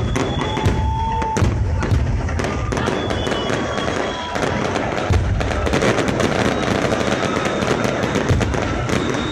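Aerial fireworks display: shells bursting one after another with dense crackling, many bangs a second.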